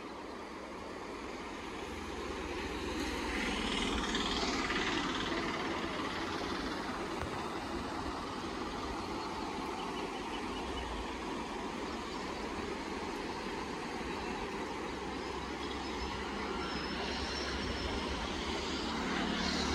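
Fast-flowing muddy floodwater rushing past as a steady noise with a low rumble underneath, growing louder about four seconds in and again near the end.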